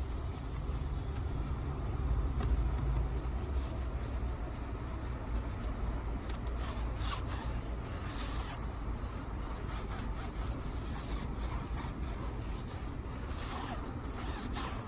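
Rubbing and scraping from a car wheel and tire being cleaned by hand, with scattered light scratchy clicks, over a steady low rumble.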